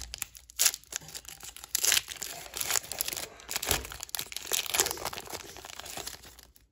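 Foil wrapper of a Pokémon booster pack being torn open and crinkled by hand: irregular crackling and rustling with several louder crinkles as the pack is pulled apart.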